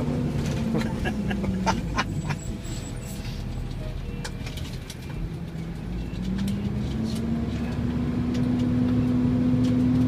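A fire truck's diesel engine running, heard from inside the cab. It drops in pitch about two seconds in as the truck slows for a turn, then climbs and grows louder from about six seconds as it pulls away again. Light clicks and rattles come through the whole time.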